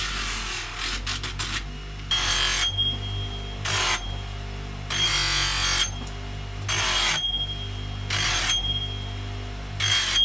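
A bench grinder motor hums steadily while a carving axe's steel edge is pressed to the spinning wheel in about seven short passes, each a harsh grinding hiss. The axe is being sharpened.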